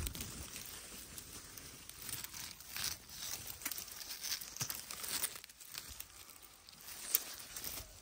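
Dry, brittle vine stems and twigs rustling and crackling in irregular bursts as they are handled and pulled apart, with a sharper crack about seven seconds in.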